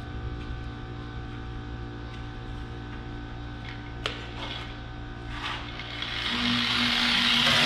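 Steady machine hum with a few faint clicks, then a hissing noise that builds up and grows louder from about six seconds in.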